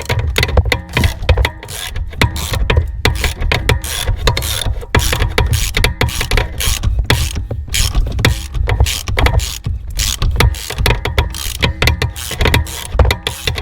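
Ratchet wrench clicking rapidly as a 10 mm bolt is backed out.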